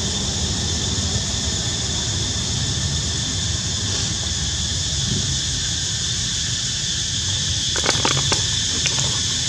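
Steady outdoor ambience: a continuous high insect drone over a low rumble, with a few sharp clicks about eight seconds in.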